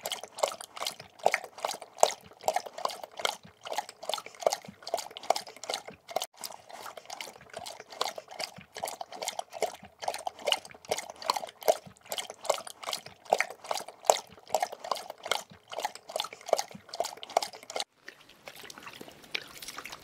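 Dog lapping water with its tongue: quick wet laps at an even pace of about three a second, breaking off near the end.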